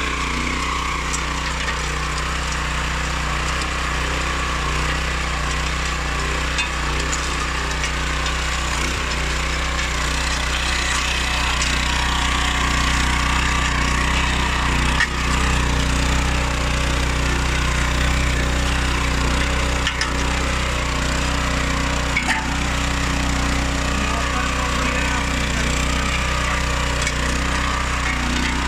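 Oleo-Mac MH 150 RK motor hoe's small petrol engine running steadily, with a few sharp knocks about halfway and again later.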